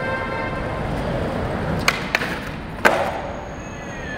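Skateboard wheels rolling on concrete, then a sharp pop about two seconds in, a lighter click, and a loud slap of the board landing just under a second later. The rolling then carries on more softly.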